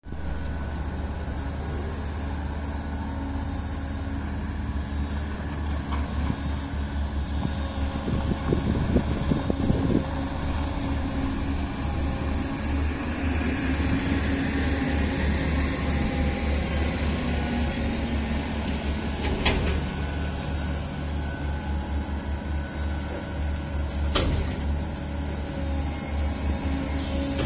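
Diesel engine of a wheeled material-handling crane running steadily as it works a clamshell grab loading bulk corn, with a couple of sharp metal clanks.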